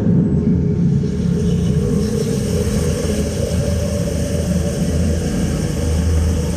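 A loud, steady low rumble, a sound effect in the performance soundtrack.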